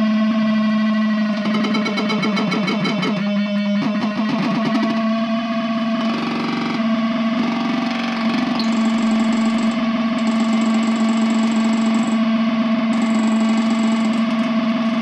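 Fort Processor DIY noise synthesizer circuit played as a standalone synth, its oscillators sounding a loud, steady low drone with a changing texture above it as fingers work the touchpads. A thin high whine cuts in and out several times in the second half.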